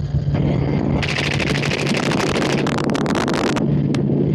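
Rapid string of suppressed rifle shots fired from a helicopter, a quick run of sharp cracks lasting about two and a half seconds, over the steady drone of the helicopter.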